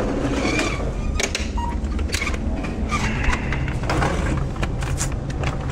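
Supermarket ambience: a steady low hum with scattered clicks and knocks.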